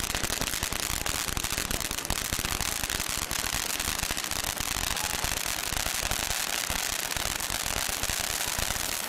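Brothers Buzz Saw Fountain firework going off: a steady hiss of its spark jet under a dense, rapid crackling and popping from the stars bursting above it.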